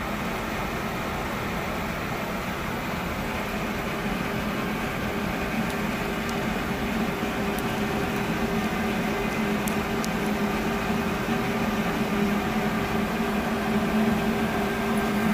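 Steady hum and hiss of the space station's ventilation fans and equipment, with a low droning tone that grows a little stronger partway through.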